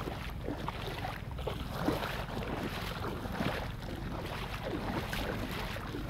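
Wind on the microphone, a steady low rumble, with small waves lapping and splashing in the shallows.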